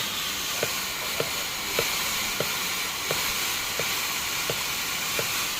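Tasco Minifogg small fogging machine giving a steady rushing hiss that starts suddenly. A sharp tick comes about every two-thirds of a second, around eight in all.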